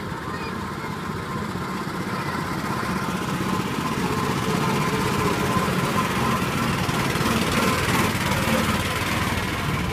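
Small engines of children's motorised mini cars running as they drive past, the hum growing louder as the cars come close and peaking past the middle.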